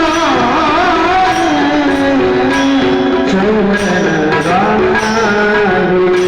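A traditional Marathi kirtan tune performed with a melodic voice line and held instrumental tones over steady percussion strokes keeping time.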